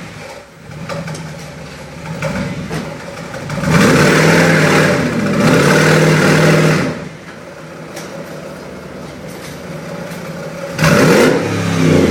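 Mercedes-Benz E500's V8 engine idling and being revved: a loud rev of about three seconds in the middle, its pitch rising and falling, then back to idle, and a second short rev near the end.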